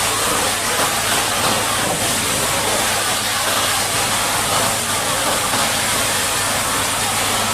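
High-pressure water jet spraying mud off a Caterpillar D8T bulldozer: a steady, loud hiss with a low hum underneath.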